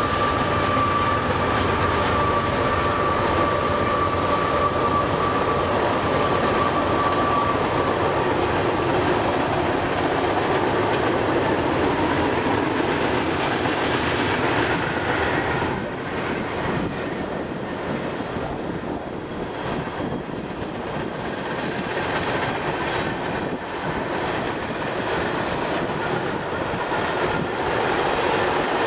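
Diesel freight train passing close by: a locomotive's steady whine fades over the first several seconds, then a long string of tank cars rolls past with wheels running over the rails. The sound drops a little about halfway through.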